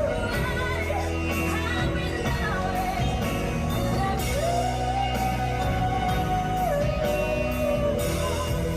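A singer holding long, slightly gliding notes over a band with a steady beat; one note near the middle is held for more than two seconds.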